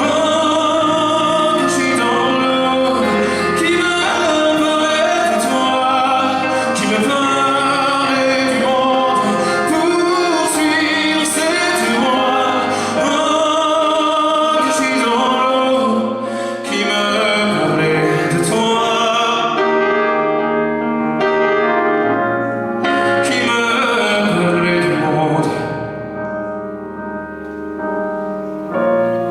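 Live band music from a concert, a full band with drums playing a passage of the song. The sound thins out and drops in volume a few seconds before the end.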